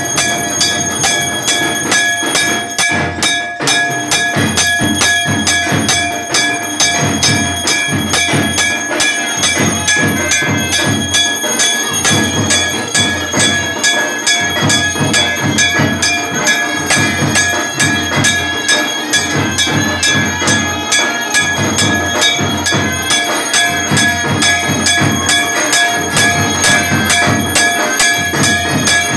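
Puja percussion played rapidly and steadily: fast, even drum beats with metal bells and gongs ringing continuously over them, the sound of a temple aarti.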